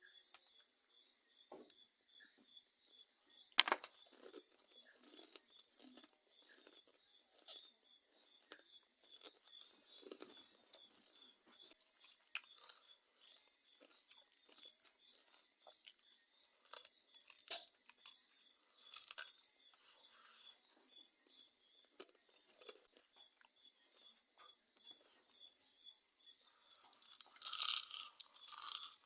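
Faint crunching and chewing of crispy fried chicken, with scattered small crackles and a sharper click about four seconds in. Insects chirp in a steady, even pulse underneath.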